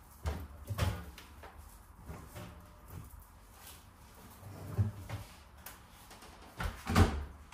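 Soft knocks as mesh laundry bags holding sneakers are pushed into the drum of a front-loading washing machine, then a louder thump near the end as the machine's door is swung shut.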